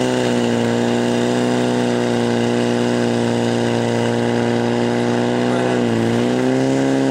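The engine of a portable fire pump running at high revs and pushing water through the attack hoses, a steady engine note. Its pitch dips briefly about six seconds in, as water reaches the nozzles, then picks up again.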